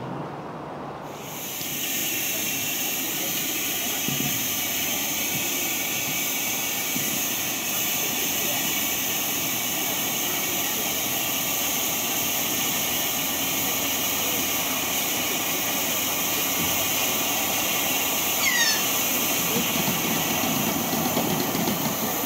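Small steam launch letting off steam: a loud, steady high hiss that starts abruptly about a second in. A short falling whistle is heard near the end.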